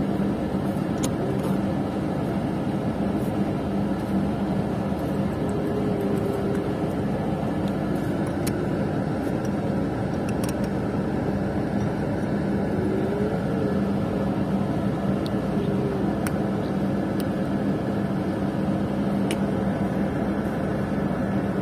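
Steady drone inside a bus cabin: a constant engine hum with road and ventilation noise, and a few faint clicks.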